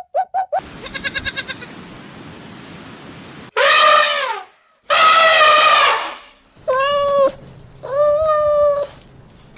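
An animal's calls: a quick series of short pulsed calls at the start, then four drawn-out crying calls, two long and two shorter, each holding a fairly steady pitch.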